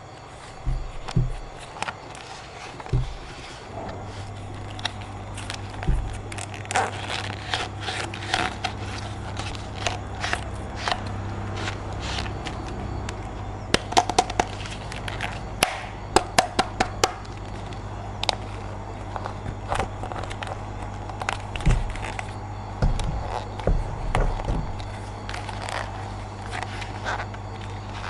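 Toys and packaging being handled: irregular clicks, taps and light scrapes, sharpest and most frequent in the middle, over a steady low hum that starts about four seconds in.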